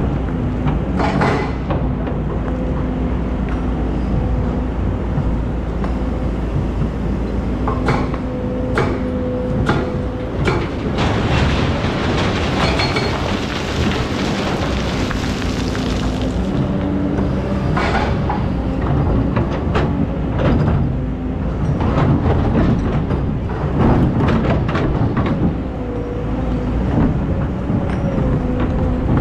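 Hydraulic excavator's diesel engine running under load, with a hydraulic whine that steps up and down in pitch. Metal clanks from the bucket and arm come every few seconds, and a rushing hiss lasts several seconds around the middle.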